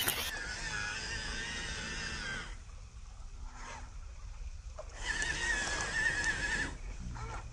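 An MN99S RC crawler's electric motor whining as the truck drives through a river, the pitch wavering with the throttle, in two stretches with a quieter gap in between. Running water hisses underneath.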